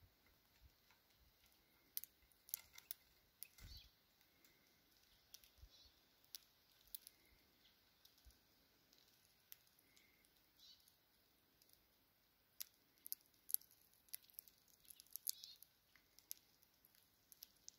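Eurasian bullfinches cracking and husking sunflower seeds in their beaks: faint, irregular sharp clicks and crunches, coming in clusters.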